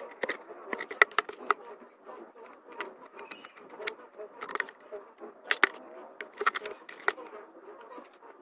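Hand-held cutting tool working through the thin wall of a plastic bucket: irregular sharp clicks and cracks with scraping in between, as the plastic snaps and gives along the cut.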